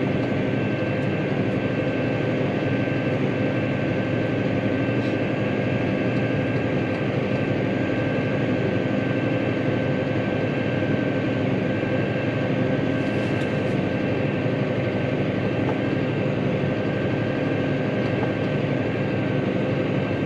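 Tractor engine running steadily under load while pulling a plough, a constant drone with a thin steady whine above it.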